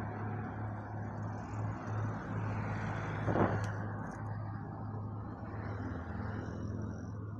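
Steady hum of running motor-vehicle engines, with one vehicle swelling past close by about three and a half seconds in.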